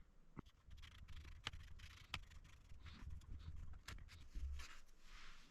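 Faint, scattered small clicks and light scraping of tools on the works of a Monroe L-200 mechanical adding machine, with about four sharp clicks spread through the few seconds.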